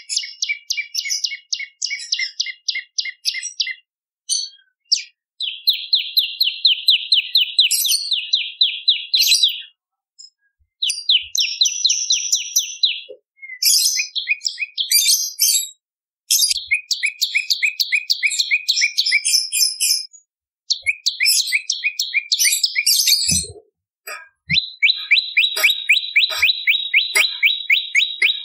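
Prenjak lumut singing: rapid trills of sharp, evenly spaced chirps, about six a second, in phrases of two to four seconds with short pauses between.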